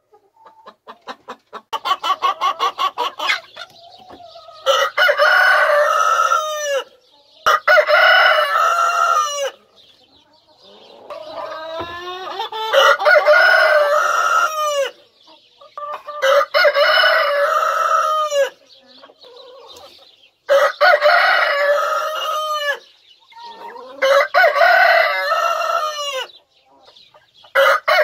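Rooster crowing over and over: six full crows of about two seconds each, evenly spaced, with a seventh beginning at the very end. Just before the first crow there is a quick run of clucking.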